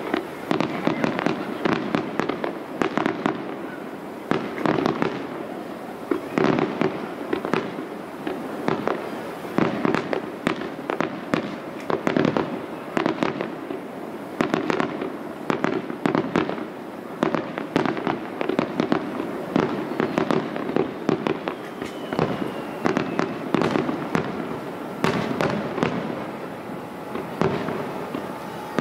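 Aerial fireworks shells bursting in a continuous barrage: several bangs a second over a steady low rumble.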